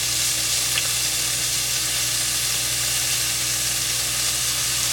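Diced salt pork frying in its own rendering fat in a pan, sizzling steadily.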